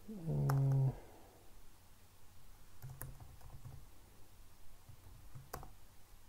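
A few sparse computer keyboard key presses, single clicks spread seconds apart, as text is deleted in a code editor. A man's short hum, under a second long, comes at the start and is the loudest sound.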